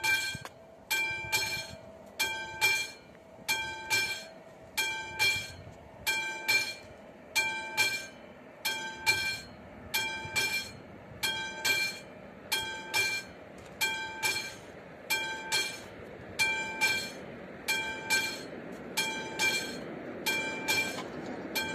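Classic electromechanical level-crossing warning bell ringing in double strokes, a little faster than once a second, signalling that a train is coming. Near the end the rumble of the approaching train grows under the bell.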